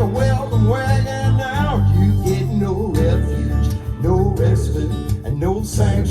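A recorded song with singing, guitar and strong bass, played back over Piega 811 hi-fi loudspeakers driven by a Hegel H600 amplifier.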